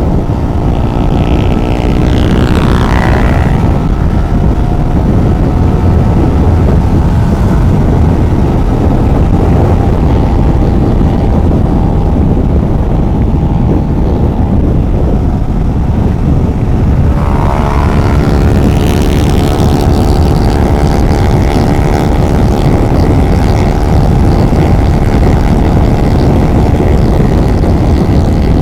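Motorcycle engine running steadily on the road at speed, with dense low rumble. Its pitch climbs twice, once near the start and again past the middle, as the bike accelerates.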